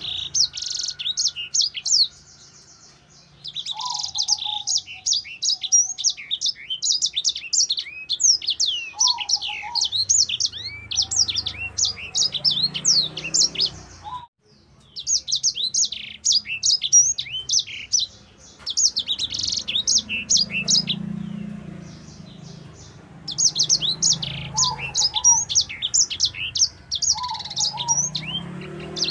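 A caged sanger, a small seedeater finch, singing its fast, high, chattering song of rapid chirps and sweeping notes in long phrases. It breaks off for a second or two a few times, with fainter lower whistled notes now and then.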